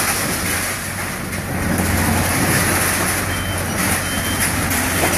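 Takeuchi mini excavator working at demolition, its diesel engine and hydraulics running steadily under load. Two short high beeps sound a little after the middle.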